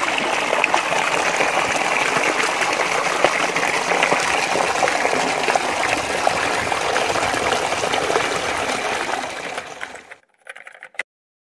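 Shallow mountain stream rushing and splashing over rocks, steady, then fading out near the end, followed by a few faint clicks.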